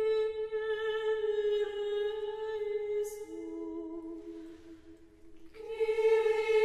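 Ambrosian chant sung unaccompanied: long held notes on a single melodic line. About three seconds in it steps down to a lower note, breaks off briefly near five seconds, then comes back on the higher note.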